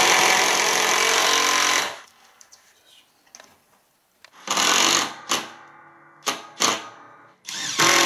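Milwaukee M12 Fuel cordless impact driver hammering screws through a metal bracket into a timber frame. There is a long run of about two seconds, then a quiet gap with small clicks, several short bursts, and a second long run starting near the end.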